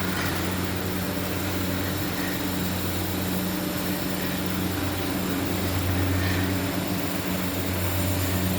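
Automatic steam-heated mawa kettle running: a steady motor hum with an even hiss over it.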